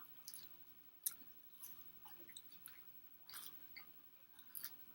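A person chewing food close to the microphone: soft, wet mouth clicks and smacks at irregular intervals, a few seconds apart.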